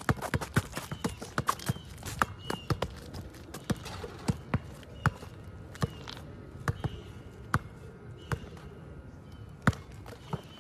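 A basketball being dribbled on an outdoor sport court: sharp bounces, quick and close together in the first few seconds, then more spaced out.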